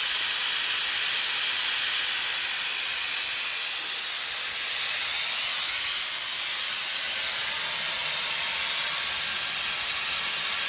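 CNC plasma cutter torch cutting, a steady hiss from the plasma arc, dipping slightly for about a second some six seconds in.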